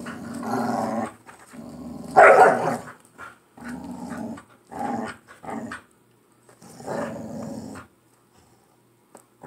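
Two pit bulls growling as they play tug-of-war over a plush toy, in rough bouts of a second or so with short pauses, loudest about two seconds in. This is play growling, not a real fight.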